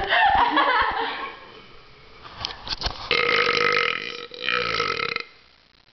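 Loud burping: a burp with a wavering pitch right at the start, then, after a quieter stretch, a long drawn-out belch of about two seconds beginning about three seconds in, with a brief break in the middle.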